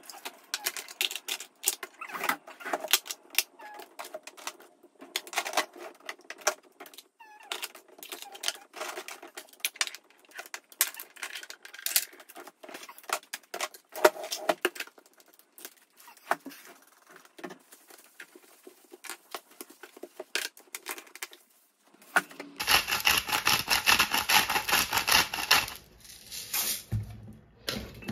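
Cosmetic bottles, jars and compacts being picked up and set down on a vanity table as it is tidied: a long run of small clicks, taps and clinks of plastic and glass. Near the end this gives way to a louder, steady rushing noise lasting about three seconds, then a few knocks.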